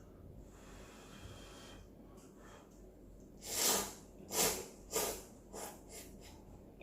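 A person slurping spicy ramyeon noodles, about four quick sharp slurps in a row, the first two loudest.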